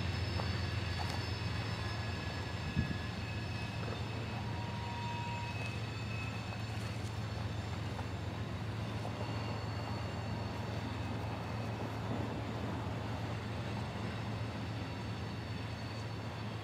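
Freight train cars rolling past at a distance: a steady low rumble with faint high whines over it, and a single sharp knock about three seconds in.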